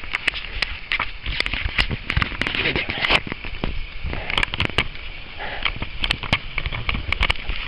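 Irregular crunching and crackling of a bicycle going through soft dune sand, with many sharp clicks scattered at uneven intervals over a steady hiss.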